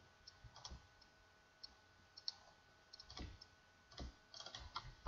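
Faint, irregular clicks of a computer mouse and keyboard, a dozen or so scattered strokes, some in quick pairs.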